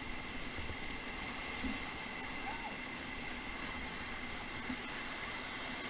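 Whitewater rapids rushing steadily around a raft, an even wash of water noise.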